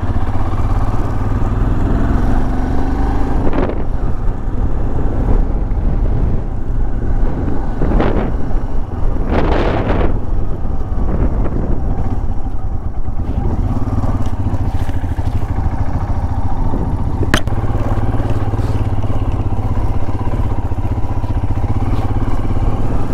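Royal Enfield motorcycle riding over a rough gravel track: a steady low engine hum with tyre crunch and rattle. A few short rushes of noise cut through it, the loudest about ten seconds in, and there is one sharp click about halfway through.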